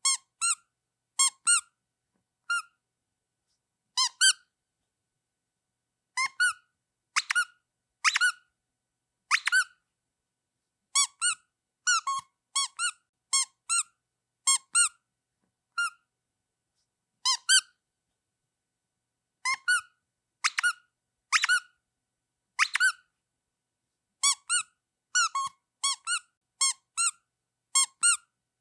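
Rubber duck squeaky toy squeezed over and over, giving short high-pitched quacking squeaks, some singly and some in quick runs of two to four, with silence between.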